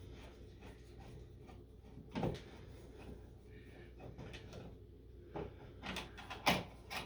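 Faint scattered clicks and knocks of a hand screwdriver working the screws on a metal switch box: one knock about two seconds in and a cluster of several near the end.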